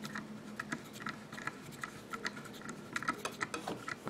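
Small screwdriver snugging down a screw in the steel receiver of a Marlin 39A lever-action rifle: light, irregular metallic clicks and ticks as the screw is turned, with one sharper click right at the end.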